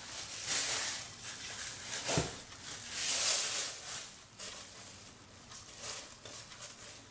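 Thin plastic film crinkling and rustling in several bursts as it is pulled off a bowl of dough, with a single dull knock about two seconds in.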